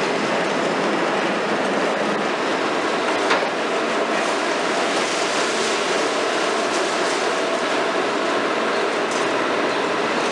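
Hitachi 350 long-reach demolition excavator (Kiesel KMC 400) running its diesel engine and hydraulics, a steady dense machine noise, with one sharp knock about three seconds in.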